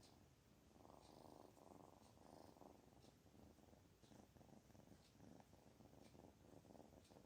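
Kitten purring softly and steadily, swelling and fading about once a second: the contented purr of a kitten that feels good.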